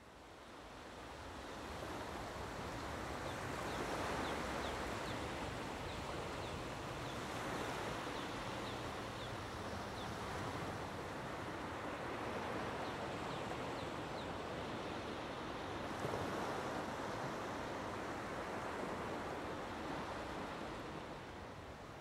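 Gentle ocean waves washing onto a shallow sand and rock shore: a steady surf hiss that fades in and then swells and eases every few seconds. A few faint high chirps come through in the first half.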